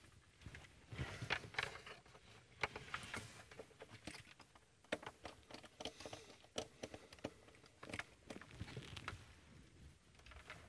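Faint, irregular clicks, taps and rustling of someone handling things at a lectern with a laptop.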